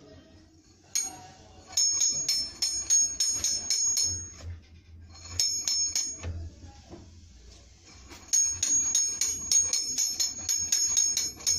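Steel ratchet pawl clicking over a star-shaped ratchet wheel as the hand crank of a grill's height mechanism is turned. The clicks come about four to five a second, each with a bright metallic ring, in three runs with pauses between them.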